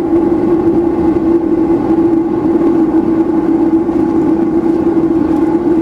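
Steady machinery running: a loud, constant drone with a strong unchanging hum and overtones.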